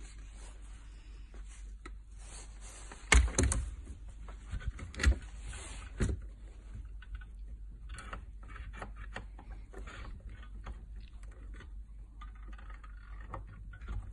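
G&G GM1903 airsoft rifle's bolt action being worked by hand: a quick cluster of sharp metal clacks about three seconds in, two more single clacks over the next few seconds, then lighter clicks and rattles as the parts are handled.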